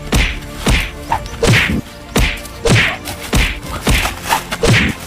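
A rapid series of whacking punch hits, each with a swish, about two a second, as in a staged fistfight.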